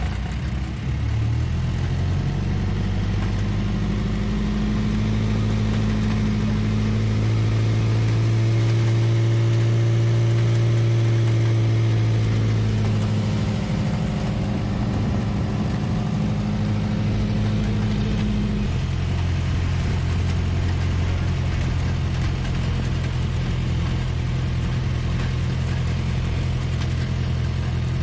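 Engine of an open-sided vehicle running while under way. Its note rises a few seconds in, holds, eases back around the middle, and drops to a lower steady note about two-thirds of the way through.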